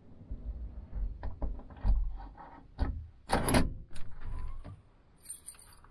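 Keys jangling, then the clicks and knocks of a lock and latch as a fiberglass truck-canopy's rear glass hatch is unlocked and opened, with the loudest clatter a little past three seconds in and a short high rattle near the end.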